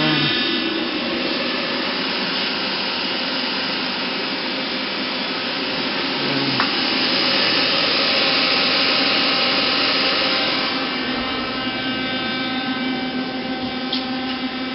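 Daewoo Puma 12LC CNC lathe running, a steady machine whine over a hiss. It grows louder about halfway through and settles back down about three quarters of the way in.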